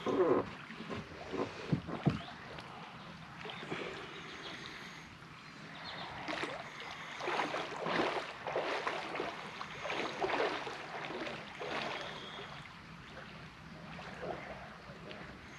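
Water sloshing and splashing around a small boat in irregular swells, with no steady motor tone.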